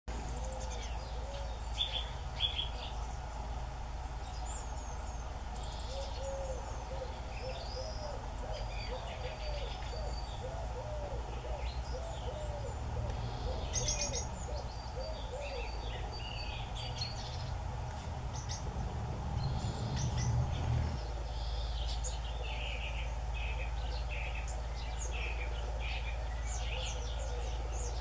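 Small songbirds chirping and calling in many short, high notes, with a run of low, repeated hoot-like notes in the background for the first half. A low rumble builds and cuts off suddenly about 21 seconds in.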